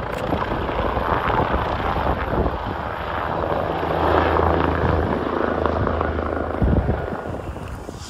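Police helicopter flying low overhead, its rotor and turbine running steadily. It is loudest about halfway through and fades near the end.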